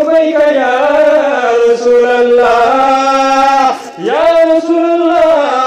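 A man's voice chanting a sung passage of a Bengali Islamic sermon in long, drawn-out notes, sliding slowly between pitches, with a short breath about four seconds in.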